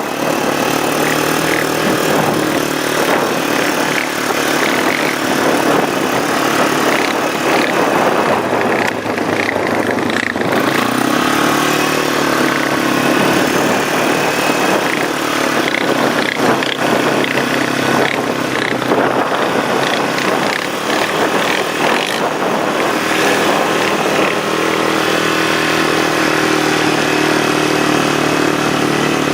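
ATV engine running as the quad is ridden, under steady wind noise on the microphone; the engine note rises about ten seconds in.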